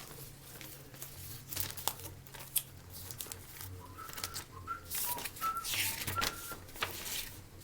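Packaging crinkling and rustling with scattered clicks as potted phalaenopsis orchids are lifted out of a shipping box and set down. A few short, high whistle-like chirps come in about halfway through, over a steady low hum.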